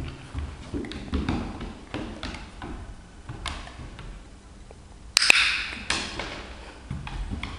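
Dog-training clicker giving a sharp double click about five seconds in, followed by a brief rustle. Around it are soft taps and thumps of handling while the dog is clicked and fed for eye contact.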